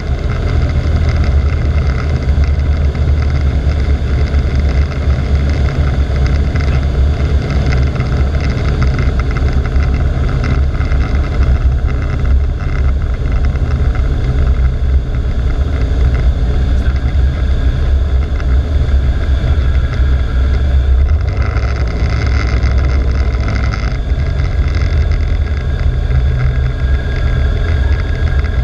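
Cessna 172's engine and propeller making a loud, steady drone mixed with airflow noise through final approach, flare and touchdown.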